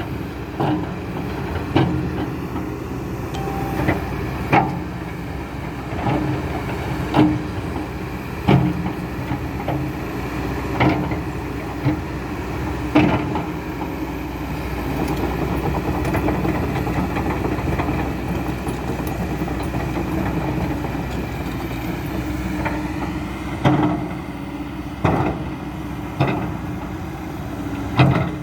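Kobelco SK200-10 hydraulic excavator at work: its diesel engine runs steadily, with sharp metallic clanks every second or two.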